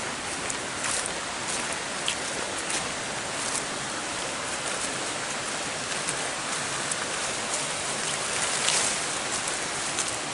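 Footsteps crunching through dry leaf litter and brushing past undergrowth on a jungle trail: a continuous dense rustle with scattered sharp crackles of leaves and twigs.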